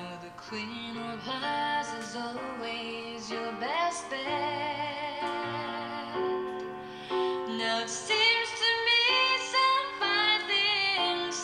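Music played through a Graetz Polka 613 valve radio's loudspeaker: a woman singing with vibrato over instrumental accompaniment.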